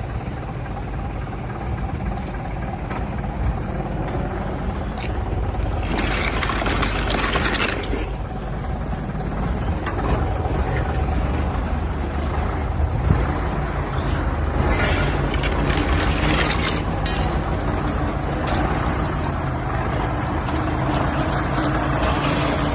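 A vehicle engine running steadily, with two louder bursts of hiss about six and fifteen seconds in.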